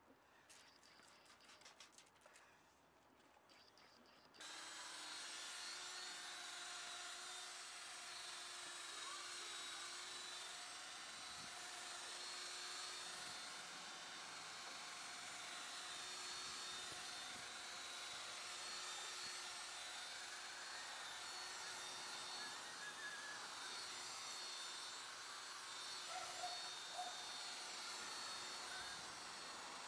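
A few faint clicks, then about four seconds in a cordless drill spinning a round pad against a car's body panel starts up and runs steadily with a steady whine.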